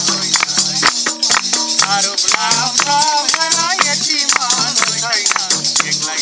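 Nepali madal drum beating a steady folk rhythm, with tambourine jingles and hand claps, during an instrumental stretch between sung verses. A voice joins briefly in the middle.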